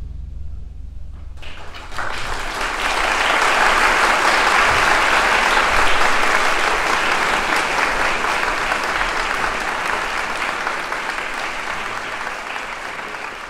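Audience applauding in a concert hall after the last note of an orchestral piece. The clapping breaks out about a second and a half in, as a low drum resonance dies away, builds quickly and then slowly tapers off.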